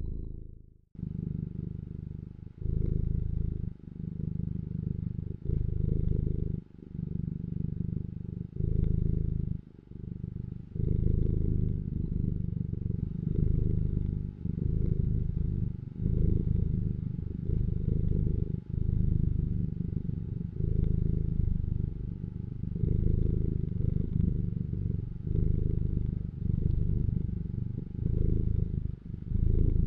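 Domestic cat purring: a low rumble that swells and eases with each breath, about one swell every second and a half.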